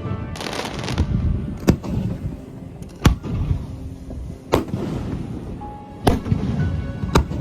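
Fireworks shells bursting overhead: about six sharp booms, roughly one every second and a half, each trailing off in a rolling echo.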